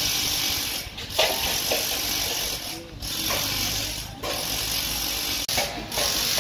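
Rapid metallic ratcheting, typical of ratchet spanners tightening the couplers on steel scaffold tubes. It runs in stretches of one to two seconds with short breaks between them, with workers' voices underneath.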